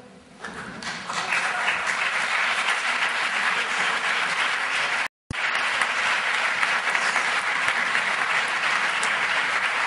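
Audience applauding, swelling in over the first second, with a momentary dropout about five seconds in.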